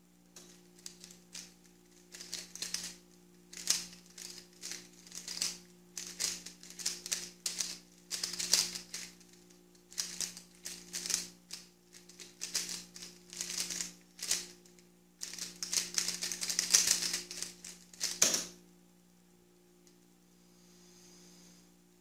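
Guoguan Yuexiao 3x3 speedcube turned at speed: bursts of rapid plastic clicking with short pauses between, ending about 18 seconds in with a sharp knock as the keyboard is struck to stop the timer.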